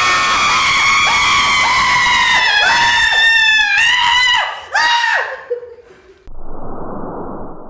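A shrill, drawn-out ghostly female shriek that breaks into quick cackling pulses about halfway through, then fades; near the end a short breathy hiss.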